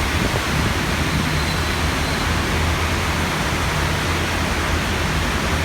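Heavy rain pouring steadily in a thunderstorm, an even hiss with a low steady rumble underneath.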